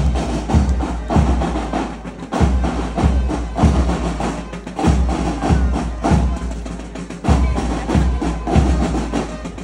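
Marching band drums playing a march: a bass drum beating steadily a little under twice a second under snare drum and other percussion.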